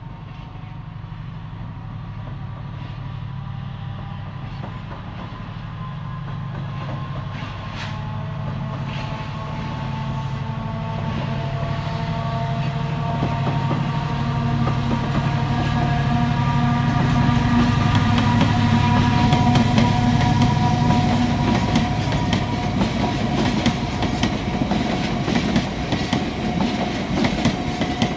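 Diesel freight locomotive approaching and passing, its engine hum and whine growing steadily louder. From about three quarters of the way through, the long train of tank wagons follows, clattering over the rail joints in rapid, regular clicks.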